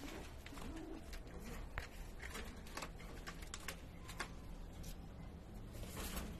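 Domestic pigeons cooing softly, with scattered small clicks and rustles and a short rustling burst near the end.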